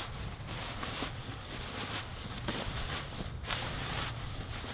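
Crinkly rustling of a down sleeping bag's nylon shell as it is rolled up and squeezed by hand, with many small crackles.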